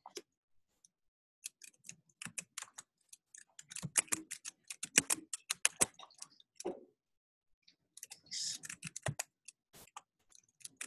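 Typing on a computer keyboard: runs of quick keystroke clicks broken by short pauses.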